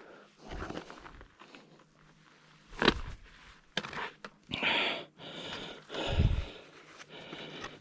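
A hiker's footsteps and scuffs on a steep rocky trail during the descent, irregular and uneven, with a sharp tap about three seconds in and a low thump near six seconds.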